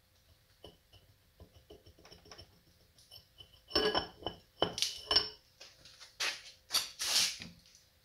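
Metal clinking and scraping as an ATV's CVT clutch sheave is worked off its splined shaft by hand. Light ticks at first, then a run of louder clinks from about four seconds in.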